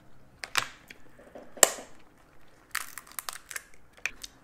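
Snow crab leg shells cracking and snapping as they are broken open by hand: a handful of sharp cracks, the loudest about one and a half seconds in.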